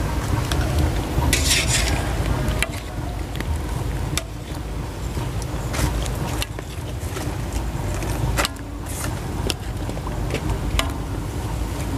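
A ladle stirring a large aluminium wok of greens blanching in boiling water, knocking and scraping against the pan at irregular moments, over a steady low rumble.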